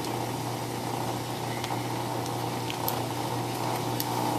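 Steady low mechanical hum, with a couple of faint clicks about three and four seconds in.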